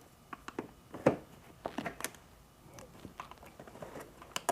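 Small plastic clicks and taps, a handful spread out irregularly, as plastic push rivets are popped out of the floor of a Honda Gold Wing's trunk by hand.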